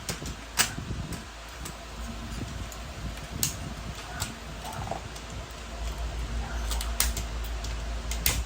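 Irregular clicks and taps of a die-cast and plastic transforming robot toy being handled, its parts pushed and snapped into place, over a steady low hum.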